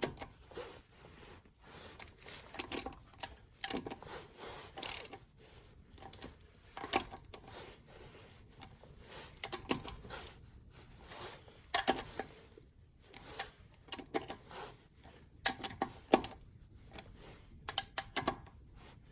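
Irregular metallic clicks and clinks of a hand tool and steel hub parts as a manual locking hub's fasteners are snugged up.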